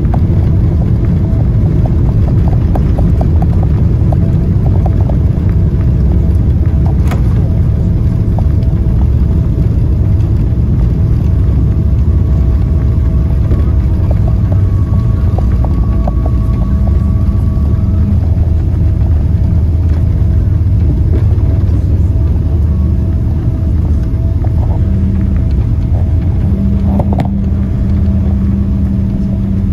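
Inside the cabin of a Boeing 777-300ER during landing and rollout on the runway: a loud, steady, deep rumble of the engines and the wheels on the runway, easing slightly in the last few seconds.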